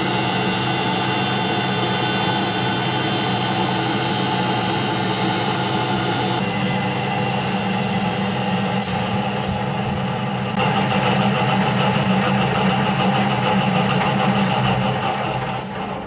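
Benchtop metal lathe running under power feed, its motor and gear train giving a steady whine while it turns a white plastic roller blank. The tone steps slightly about six seconds in and gets a little louder about ten and a half seconds in.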